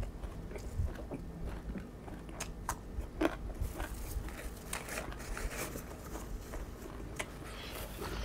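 A person chewing a mouthful of koi kung ten, the Isan salad of live small shrimp, close to the microphone, with scattered crisp crunches, the loudest about three seconds in.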